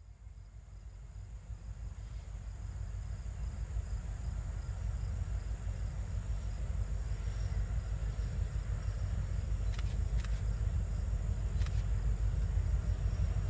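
Diesel freight locomotives approaching, a low engine rumble growing steadily louder, over a steady high-pitched drone of insects.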